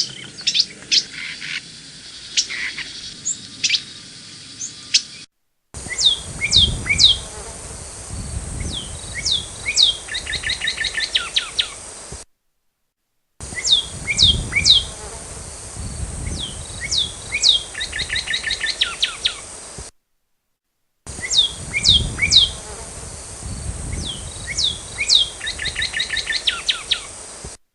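Songbirds chirping, then the same short birdsong phrase of several quick down-slurred whistles followed by a rapid trill, played three times over, each copy identical and ending in a sudden cut to silence.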